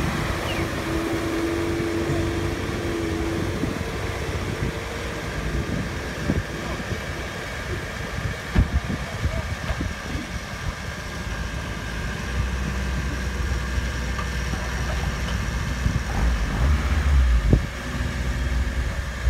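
Off-road 4x4 engines running as the vehicles crawl through mud. A steady whine is heard for the first few seconds, and the low end grows heavier about twelve seconds in.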